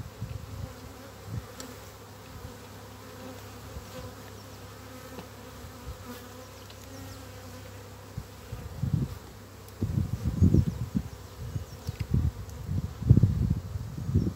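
Honeybees buzzing around an open hive, a steady droning hum. Several low rumbles, typical of wind on the microphone, break in over the hum in the second half.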